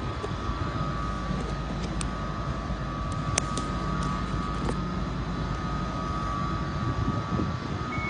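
Class 755 bi-mode Stadler FLIRT train standing at the platform, giving a steady running hum and rumble with a thin high whine on top. A few light clicks come through about two and three and a half seconds in.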